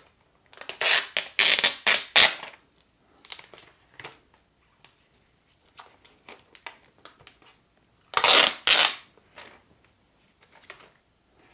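Plastic protective wrap crinkling and rustling as hands peel it off the metal back of a Google Pixel C tablet. There are two spells of loud crinkling, one about a second in and one about eight seconds in, with lighter rustles between.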